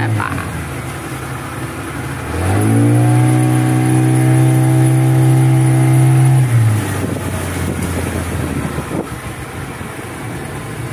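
A river boat's outboard motor: it eases off at the start, speeds up again with rising pitch a couple of seconds in, holds a steady high run for about four seconds, then throttles back to a lower, rougher running sound.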